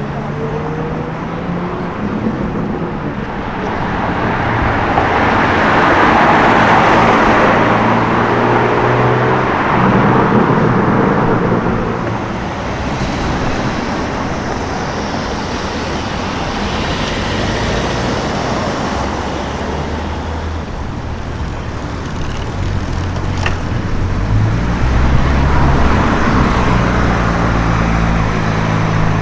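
Cars driving past on a city street: engine tones and tyre noise swell and fade as vehicles go by, loudest about six seconds in and again near the end. A deep, low engine rumble runs through the last several seconds.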